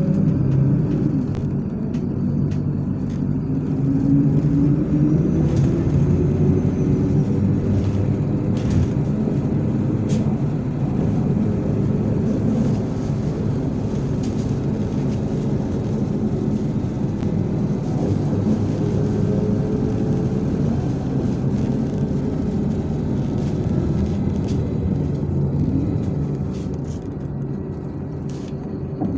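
MAZ-103 city bus under way, heard from inside: its diesel engine and drivetrain run steadily over road noise. The engine note climbs as the bus picks up speed a few seconds in, and the sound eases off near the end.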